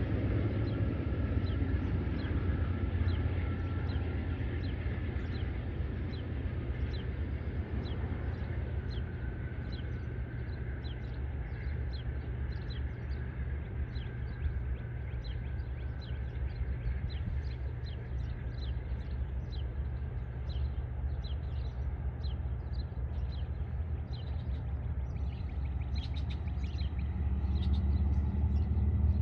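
Departing Amtrak passenger train's sound fading into the distance, leaving a steady low rumble, while a bird chirps over it in short high notes about twice a second, growing busier near the end.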